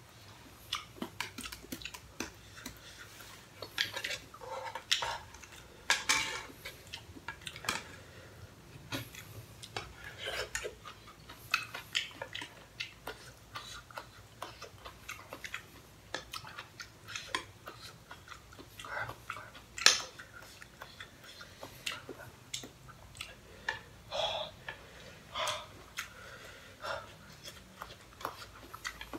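A metal spoon and wooden chopsticks clinking and scraping against a pot as two people eat pasta from it, with chewing in between. The short clinks come irregularly all through, and the sharpest is about two-thirds of the way in.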